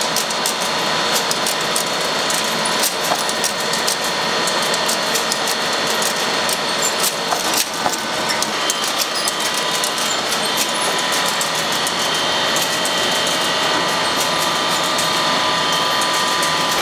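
Egg grading and packing machinery running: a steady high whine under a dense clatter of rapid, irregular clicks.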